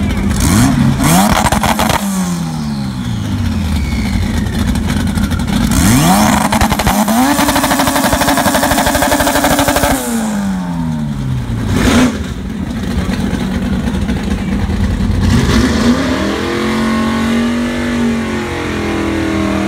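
Acura Integra drag car's four-cylinder engine revving for a burnout on drag slicks: it revs up and falls back, then is held high for about three seconds with a rushing noise of spinning tyres before dropping off. A short rev blip follows, and near the end the engine runs at raised, wavering revs.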